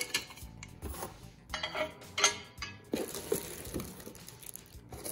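Plastic wrap crinkling and a wire trivet clinking against a Breville Combi Crisp Pan as they are handled, in several short bursts.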